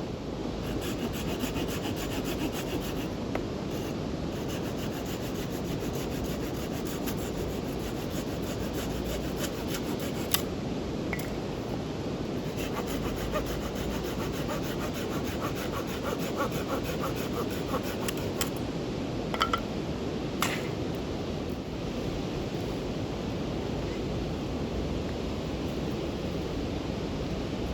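Wood being worked with a hand tool: a steady rasping that runs on without a break, with scattered sharp clicks.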